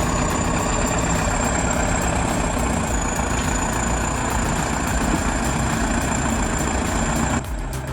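Heavy diesel machinery engine running steadily under load, with a thin high steady whine over it. The sound cuts to a quieter scene near the end.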